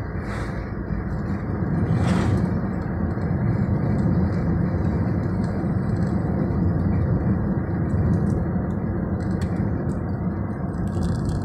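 Steady cabin noise of a moving car, engine and tyres on the road, a low rumble that gets a little louder about two seconds in.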